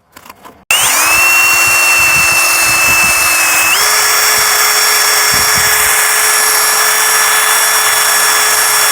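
Power drill with a sanding pad wet-sanding a plastic headlight lens with 2000-grit paper. The motor stops briefly, starts again under a second in with a whine that rises and settles, then steps up to a higher speed about four seconds in and runs steadily.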